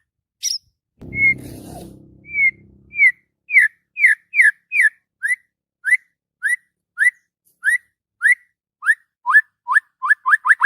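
White-rumped shama (murai batu) singing a steady series of short, down-slurred whistled notes, about two a second. A brief low rumble sounds under the first few notes.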